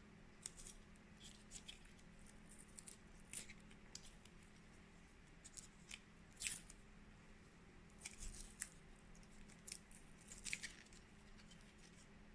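Faint crinkles and ticks of adhesive tape being handled and pressed over a print head cable connector, scattered at irregular intervals over a steady low hum.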